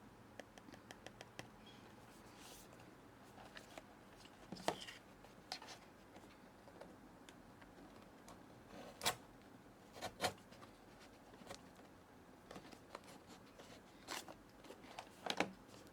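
Faint handling of blind-box packaging and small plastic pieces: a quick run of tiny clicks at the start, then scattered sharp clicks, taps and scrapes, a few of them louder.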